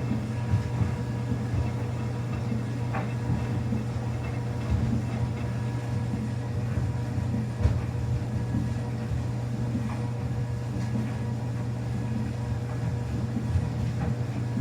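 Samsung washing machine running a quick wash cycle with towels in it: a steady low hum with a few scattered soft knocks.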